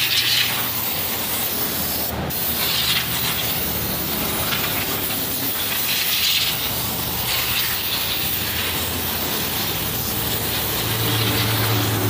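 Compressed-air spray gun with a metal paint cup hissing as it sprays finish, in repeated spurts every second or two as it sweeps the work, over a steady low hum.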